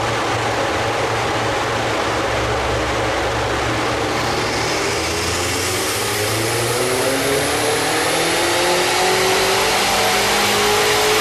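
Car engine running on a rolling road, steady at first, then climbing smoothly and continuously in revs from about halfway through as it is loaded up through a dyno power run. A steady rush from the large cooling fan and the rollers runs underneath.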